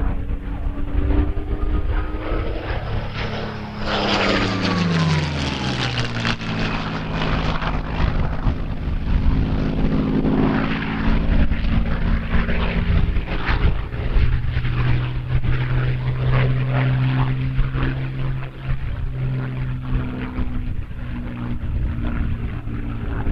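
Rolls-Royce Merlin V12 engine of a Hispano HA-1112-M1L Buchón (licence-built Messerschmitt 109 G-2) in aerobatic flight. Its pitch drops sharply about four seconds in, then it drones on at a steady pitch.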